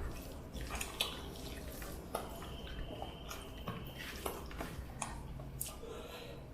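Quiet eating sounds: scattered small clicks and taps on a plate with soft wet sounds of rice and curry being handled and chewed.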